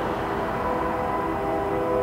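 Approaching diesel locomotive sounding its air horn, holding a steady chord of several notes over a low rumble from the train.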